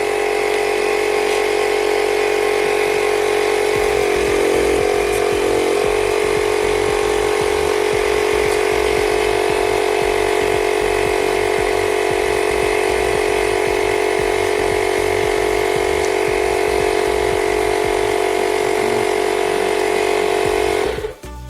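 Air compressor running steadily with a constant hum, then cutting off suddenly near the end.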